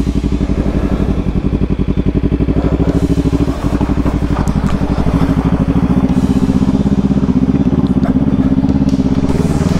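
Motorcycle engine running at low speed with an even, pulsing exhaust beat as the bike rolls slowly through a shallow creek ford. There is a brief dip about three and a half seconds in, then a little more throttle.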